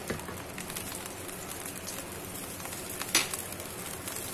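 Sauce simmering faintly in a wok, with a light metal click just past three seconds in as the wire strainer knocks against the pan.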